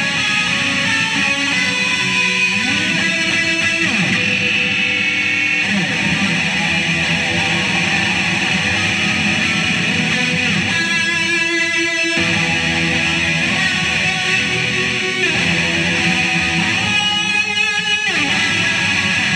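Electric guitar playing loud through a Line 6 combo amplifier: a dense, sustained sound with sliding pitches a few seconds in, and a warbling wobble around the middle and again near the end.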